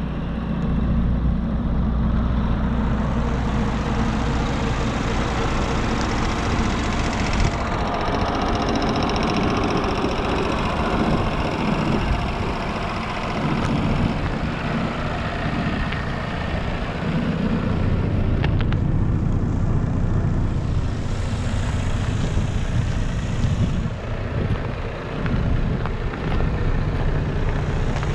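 Diesel engine of a 2015 Iveco Euro 6 tractor unit idling steadily, heard from around the cab and chassis.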